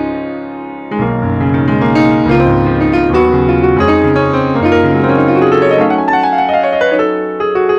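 Yamaha MOTIF ES workstation keyboard played with a piano sound: chords over a low bass line, a chord dying away and a fresh one struck about a second in, and a run of notes climbing and then falling near the end.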